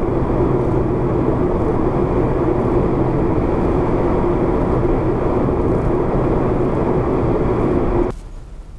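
Steady road and engine noise inside a moving car's cabin, picked up by a windscreen-mounted dash cam, with a steady hum under the rush. It cuts off abruptly near the end to a much quieter sound.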